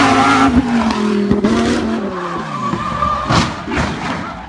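Supercar engine running at high revs as the car passes and pulls away, its pitch falling as it recedes, with tyre skid noise as it is hustled through the bends. The sound fades near the end.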